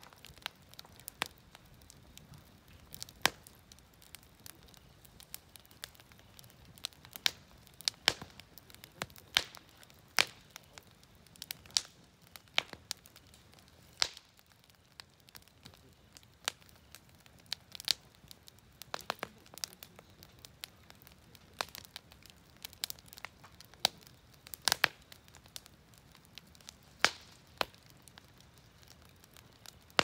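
Wood campfire crackling, with sharp pops at irregular intervals, up to a few a second, over a faint background.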